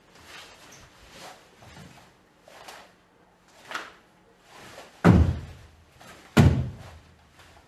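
Cotton karate gi snapping and swishing with fast hand strikes and blocks, a run of short sharp swishes, then two heavy thuds a little over a second apart near the end as bare feet stamp on a wooden stage floor.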